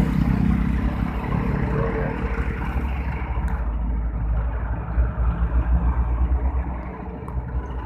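Heavy road traffic, with container trucks (tractor-trailers) passing close by in a loud, continuous deep rumble of engines and tyres. The rumble swells and pulses about five to six seconds in, as a truck goes right past.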